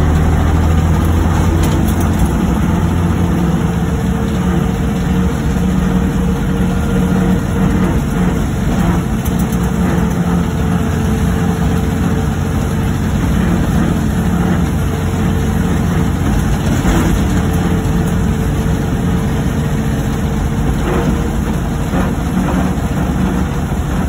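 Narrow-gauge diesel locomotive's engine running steadily, heard from inside the driver's cab. A deep low hum eases off about two seconds in, and a few faint clicks come through.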